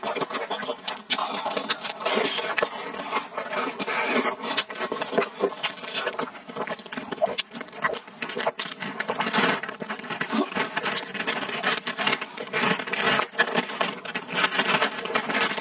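Close-miked eating sounds: wet chewing with many small mouth clicks, then sucking a drink through a straw from a plastic bag, with hissy slurps.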